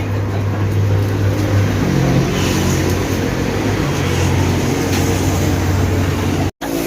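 Steady low engine hum, cutting out abruptly for a moment near the end.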